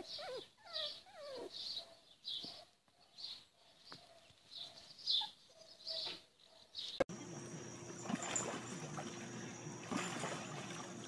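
Puppy yipping and whimpering while play-fighting, in short calls about every half second. About seven seconds in the sound cuts to a faint steady hum.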